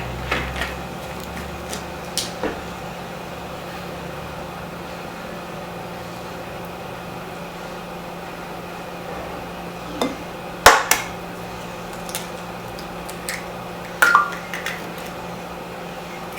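A steady electrical hum with scattered clicks and knocks of objects being handled; the loudest knocks come about ten and a half seconds in and again around fourteen seconds.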